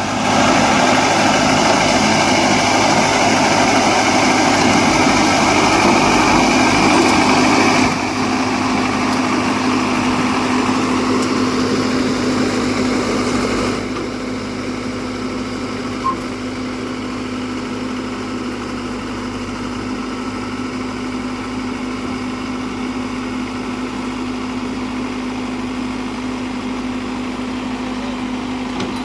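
Farm machinery engine running steadily with a constant hum, loud at first, then easing down in two steps, about eight seconds in and again about fourteen seconds in, as the load or throttle drops.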